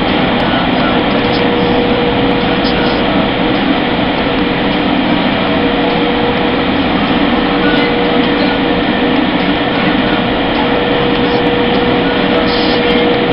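Automatic car wash air dryer blowers running steadily, a loud, even rush of air with a constant hum, heard from inside the car.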